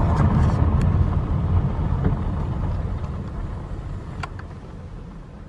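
Car rolling along a gravel road, heard from inside the cabin: a low tyre-and-road rumble that fades steadily as the car slows down, with a couple of sharp ticks, one near the start and one about four seconds in.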